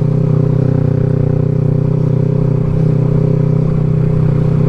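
Kawasaki Versys 650's parallel-twin engine running at steady, unchanging revs while riding.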